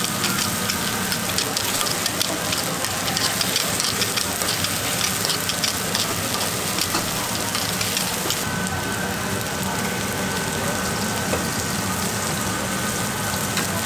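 Takoyaki sizzling in a takoyaki griddle while picks rapidly click and scrape against the pan, turning the balls. About eight seconds in the clicking stops and the steady sizzle goes on alone.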